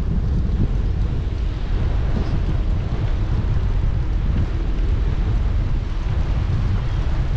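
Wind buffeting the microphone of a moving bike-mounted GoPro 8: a steady low rumble that churns without letting up.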